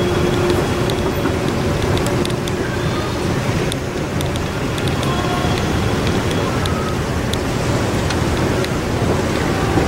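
Steady low rumble and hiss of a moving walkway running through an airport terminal, with scattered light clicks and faint distant voices.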